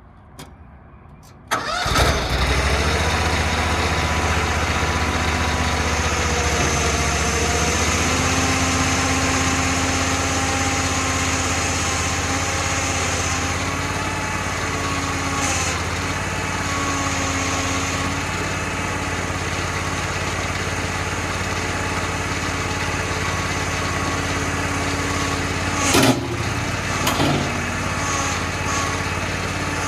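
AGT KRW23 mini skid steer's small engine starting about a second and a half in, then running steadily at idle. A couple of sharp knocks near the end.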